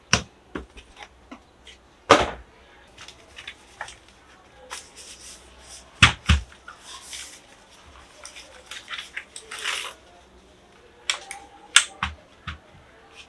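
Irregular knocks, clicks and short rustles of a boxed mechanical keyboard and its packaging being handled, with a few louder knocks spaced several seconds apart.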